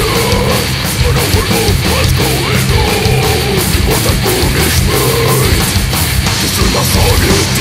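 Death metal band recording playing at full tilt: heavily distorted guitars over fast, steady drumming with dense cymbal hits.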